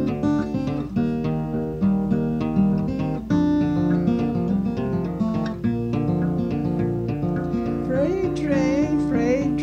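Fingerpicked acoustic guitar playing a folk tune, a melody over a steady bass line. A singing voice comes in near the end.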